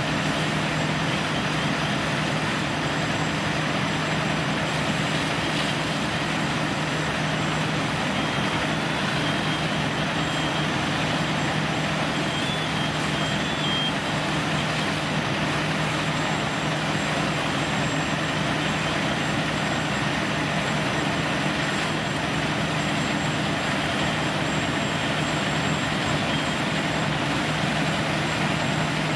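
Fire apparatus diesel engine running steadily at close range, a constant low hum under a broad, even rush of noise. A few faint, short high beeps come through around the middle.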